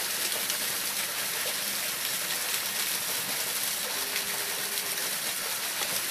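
Small, partly frozen waterfall: water trickling and splashing down over rock ledges through icicles, a steady rush of falling water.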